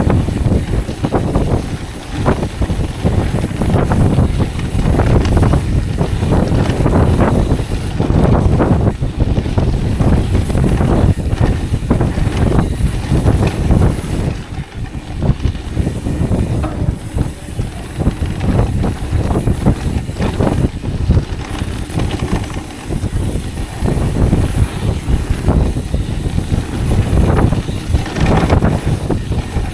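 Mountain bike riding fast down a dirt trail, heard from a camera on the handlebar: wind buffeting the microphone, tyres rumbling over the damp dirt, and a steady run of knocks and rattles as the bike goes over bumps.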